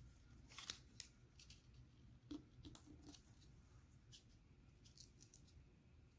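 Faint crinkles and rustles of a square of origami paper being folded and creased by hand: short, crisp crackles, scattered irregularly.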